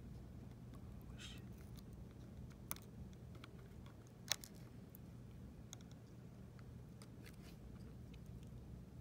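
Small, scattered clicks and taps of parts and hand tools being handled during reassembly of a small electronic device, with a brief scratchy rustle a little over a second in and one sharper click about four seconds in, over a faint low hum.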